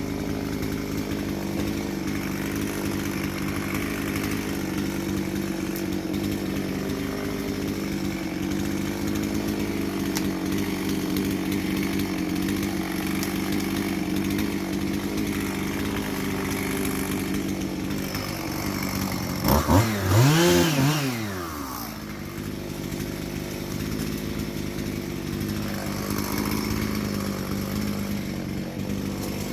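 Chainsaw engine running steadily, with a single brief rev about twenty seconds in whose pitch rises and falls back.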